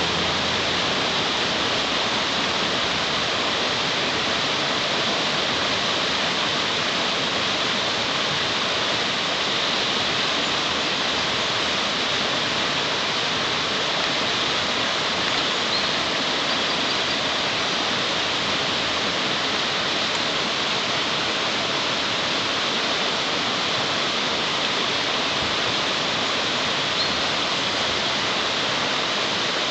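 Shallow stream water rushing steadily over a rocky riffle.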